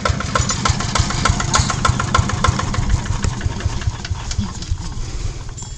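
Hand tractor's engine idling with an even knocking beat, about five knocks a second, growing quieter near the end.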